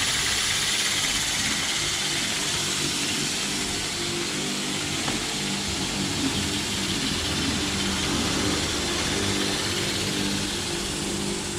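A small jewellery polishing machine running continuously to polish a silver ring, a steady hiss and hum, with engines of passing street traffic rising and falling underneath.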